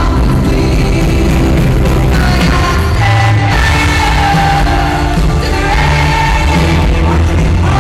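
Live arena pop ballad, loud: a band with heavy bass and a female lead vocal holding long notes, heard from among the audience.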